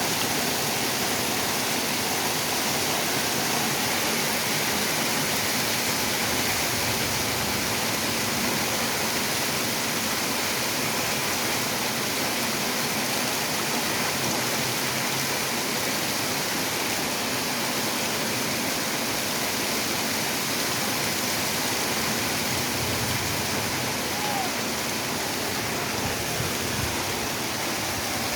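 Rain falling steadily, a loud, even hiss with no breaks.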